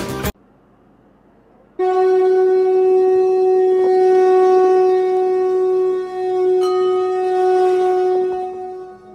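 A conch shell (shankh) blown in one long, steady note of about seven seconds, starting near two seconds in, brightening slightly partway through and fading near the end.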